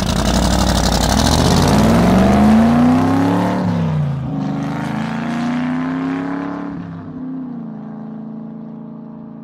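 Vintage Mercedes-Benz engine revved twice, its pitch climbing and falling back each time, then settling to a steady idle and fading near the end.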